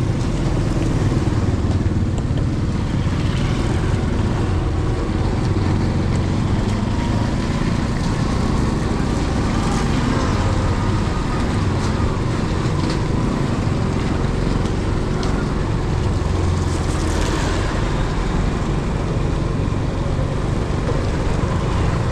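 A motor vehicle on the move in town traffic: a steady low engine hum with road noise.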